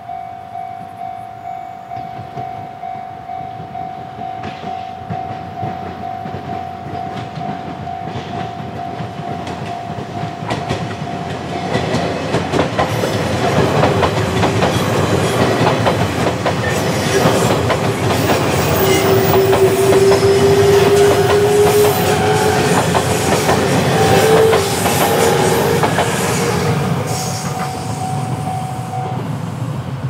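Level-crossing warning bell ringing in a steady repeating beat, then an electric passenger train runs through the crossing from about twelve seconds in. Its wheels clatter over the rail joints, loudest in the middle, with a slowly rising whine, before the noise eases off near the end.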